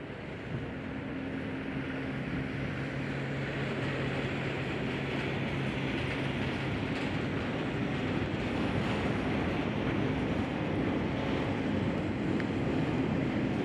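Approaching diesel freight train: a steady low locomotive engine hum under a rushing noise, growing gradually louder.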